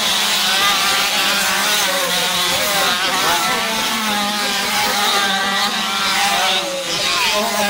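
Several small motocross bikes revving hard as the pack races past, their engine pitches rising and falling over one another.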